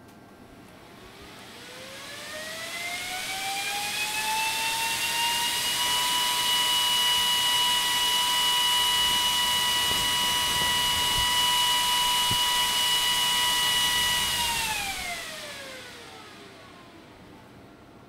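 AVC DBPF1238B8G server fan in a DIY table fan spinning up, its whine rising in pitch over about five seconds. It then runs at full speed with a loud steady high whine and a rush of air, and winds down near the end, the pitch falling away.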